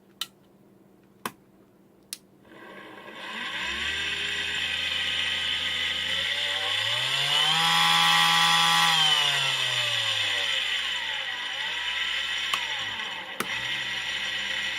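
A few clicks, then the small electric motor of a mini table saw / 18650 battery grinder starts and runs with a whine and hiss. Its pitch rises to a peak about halfway through, falls again around two-thirds of the way in, then steadies.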